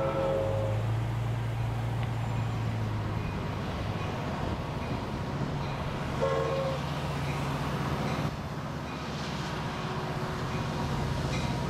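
Sounder commuter train approaching with a steady low diesel hum under a wash of outdoor noise. The end of a horn blast sounds at the start, and a short horn toot comes about six seconds in.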